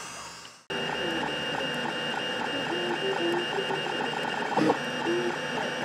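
Printrbot 3D printer printing: its stepper motors whine in short held tones that step up and down in pitch as the head moves. Under them runs a steady fan hum and a fast regular ticking of about six a second. The sound starts abruptly just under a second in.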